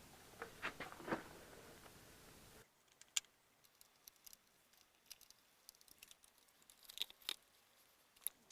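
Faint scattered clicks and light taps of small parts being handled, with two sharper clicks near the end. Partway through, the background drops suddenly to an even quieter hush.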